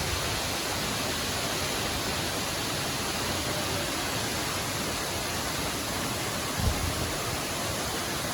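Waterfall's steady rushing roar as several falls pour into a pool. About two-thirds of the way through there is one brief low thump.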